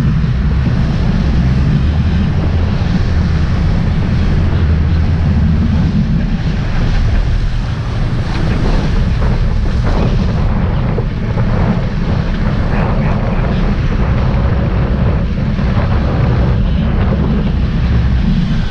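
Sportfishing boat's engines running with a steady low rumble, with wind buffeting the microphone and water churning in the wake.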